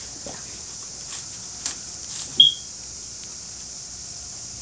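Faint rustling and light ticks of hands handling paper and ribbon around a wrapped bar of soap, over a steady background hiss, with one brief high squeak about halfway through.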